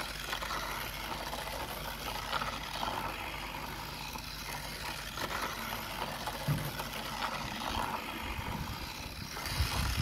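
Battery-powered plastic toy train running on its plastic roller-coaster track: a small electric motor driven by two AA cells whirring steadily, with its wheels clattering on the track, growing louder near the end.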